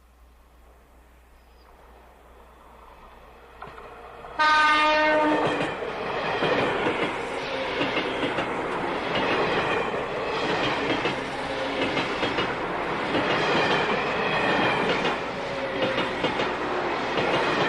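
A train approaching, growing louder over the first four seconds. About four seconds in it gives a sudden loud blast of its horn. The rumble and clatter of the train passing close by follows and continues.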